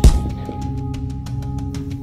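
A single punch impact, a heavy thump right at the start, over background music with steady held tones and a fast ticking beat.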